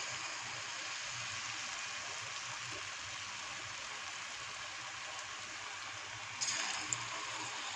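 Batter-coated snake gourd pieces deep-frying in hot oil, a steady sizzle. About six and a half seconds in, the sizzle briefly turns louder and brighter as the pieces are stirred in the oil.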